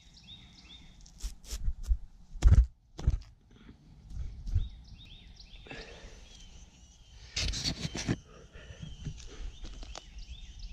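A few heavy thumps about half a second apart, then a rustling scrape lasting under a second, with faint high chirps throughout.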